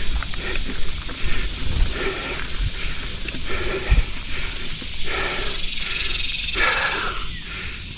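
A mountain biker breathing hard and rhythmically while climbing, about one breath every half-second to second, with longer breaths in the second half. A few low thumps from the bike and trail are also heard.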